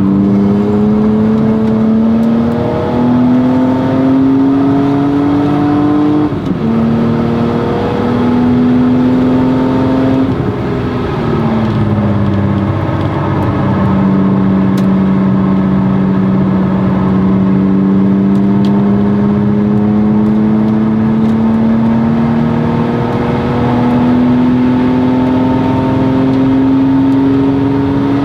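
BMW E36 M3's 3.2-litre straight-six through a Stromung cat-back exhaust, revving under hard acceleration on track. Its pitch climbs and drops back with a few quick gear changes in the first dozen seconds, dips as the car lifts off, then rises slowly and steadily in one long pull.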